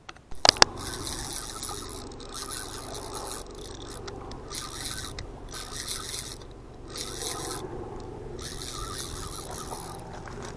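Spinning reel being cranked to bring the line in, a steady rasping whir that stops briefly several times. Two sharp clicks about half a second in.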